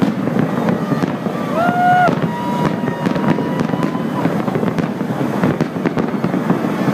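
Fireworks display: a dense, continuous crackle of many sharp pops and bangs over a steady rumble. A brief whistle-like tone rises and falls about two seconds in and is followed by a steadier tone.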